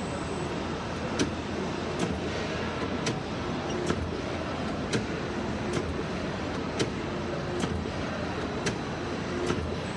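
Traversing print unit on a packaging machine, cycling with a sharp click about once a second over the machine's steady running noise.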